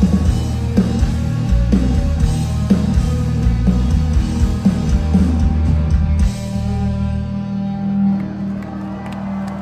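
Live rock band on electric guitars, bass guitar and drum kit, playing loud with regular drum hits. About six seconds in the band stops together, leaving held chords ringing out and slowly fading.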